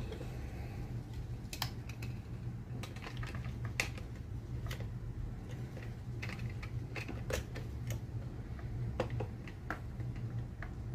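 Scattered, irregular light plastic clicks and taps as the hard plastic parts of an Adventure Force Desperado foam dart blaster are handled and fitted into its shell during reassembly.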